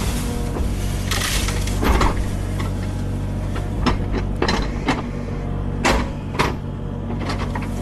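Kubota mini excavator's diesel engine running steadily, with a series of sharp clanks and knocks as the machine works.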